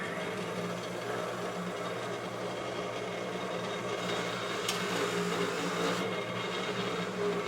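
Electric bench buffer running at full speed just after switch-on: a steady motor hum with a higher whine, growing slightly louder about halfway through.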